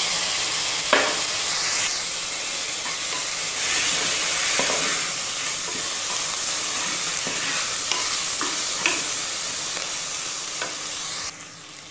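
Sliced onions, green chillies, mint and coriander sizzling in hot oil and ghee in a pressure cooker pan, stirred with a wooden spatula that knocks and scrapes against the metal now and then. The sizzling cuts off abruptly near the end.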